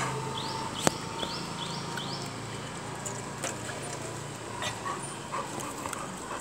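Small dog whimpering and giving faint yelps, with a single sharp click about a second in and a quick run of short high chirps.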